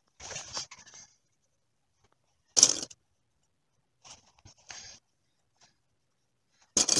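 Fabric rustling in short bursts as a coat's hood and body are handled and pinned together, the loudest about two and a half seconds in.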